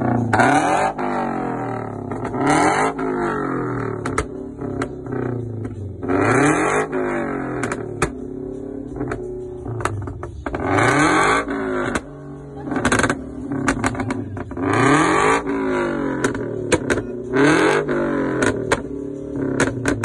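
Scion FR-S's flat-four boxer engine revved again and again through a nearly straight-piped exhaust, the pitch climbing and falling every few seconds. Each time the revs drop it lets off rapid pops and crackles, the backfire of an ECU pop-and-flame tune.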